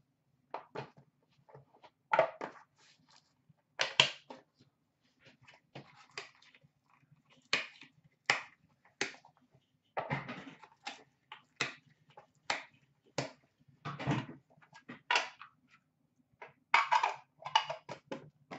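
Hands opening a trading-card box and handling the cards in clear plastic cases and their packaging: irregular rustles, crinkles and sharp plastic clicks and taps, a few a second with short pauses.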